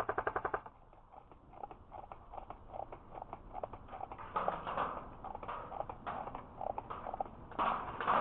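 An airsoft gun firing on full auto: a short burst of rapid, evenly spaced shots that stops about half a second in. It is followed by irregular soft clicks and knocks, with two louder stretches of rustle in the middle and near the end.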